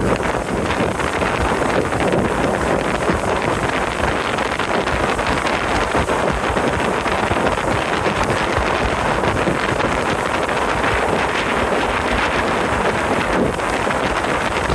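Steady wind rushing over the microphone of a boat cruising along a river.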